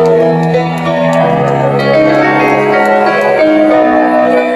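Live band playing the slow opening of a rock ballad: piano with sustained string-synth chords that change every second or two, heard through a stadium PA from far back in the audience.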